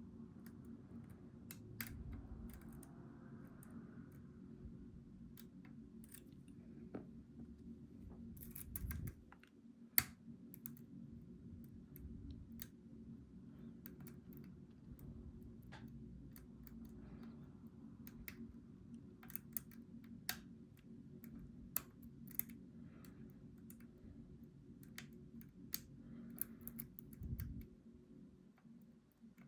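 Lock picking in a Goal V18 pin-tumbler lock: scattered small metallic clicks and ticks of a steel pick and tension tool working the pins in the keyway, over a steady low hum.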